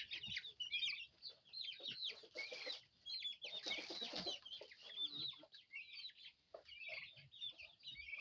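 A flock of young chickens peeping and clucking: a steady run of short, high chirps that overlap one another. A brief rustle comes about three and a half seconds in.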